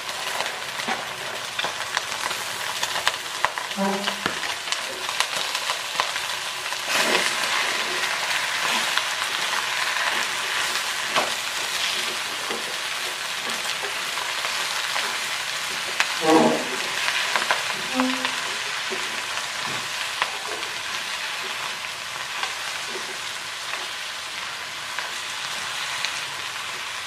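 Green mustard greens and egg sizzling as they stir-fry in a wok, with a spatula scraping and tossing them against the pan and knocking now and then.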